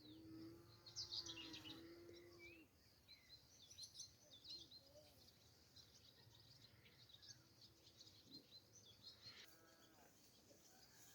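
Faint chirping of small birds, many short high calls throughout. A faint steady humming tone sounds over the first couple of seconds and again briefly near the end.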